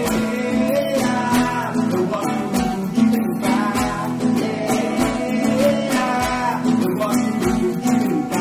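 Upbeat children's dance music with strummed acoustic guitar and a steady beat.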